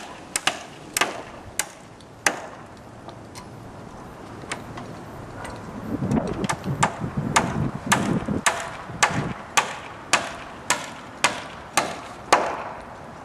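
Hammer driving nails into wooden framing, steady blows about two a second, with a pause of a couple of seconds near the start before they resume.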